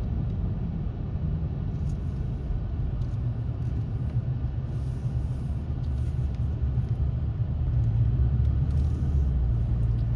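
Car engine and road noise heard from inside the cabin while driving: a steady low rumble, getting a little louder near the end.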